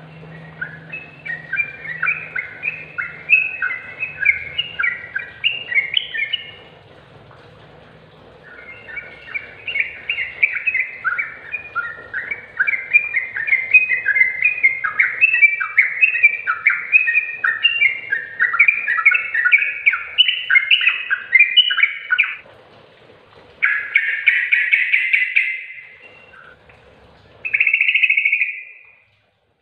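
Yellow-vented bulbul singing: rapid, bubbly warbling phrases in two long runs, then a short dense burst and a brief final phrase near the end.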